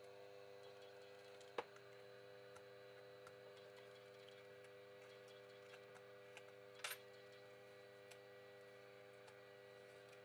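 Faint clicks and taps of a smartphone's plastic and glass parts being handled and pried apart on a tabletop: a sharp click about a second and a half in and a louder double click near the middle, over a steady faint hum.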